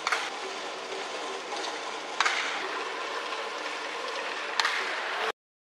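Steady ballpark crowd noise with three sharp cracks about two seconds apart. The sound cuts off abruptly near the end.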